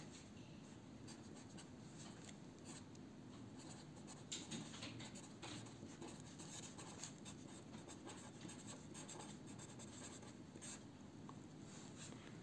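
Faint scratching of an Edding 1200 fine fibre-tip pen writing on paper, in short irregular strokes.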